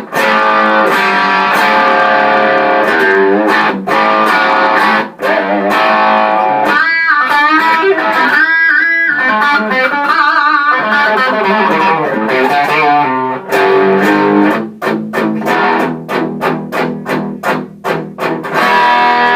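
Electric guitar played dry through a small single-ended 6V6 tube amp into a Vintage 30 speaker, its volume at about three-quarters, with a nice bark to the tone. Ringing chords come first, then bent, wavering lead notes in the middle, then short choppy stabs near the end.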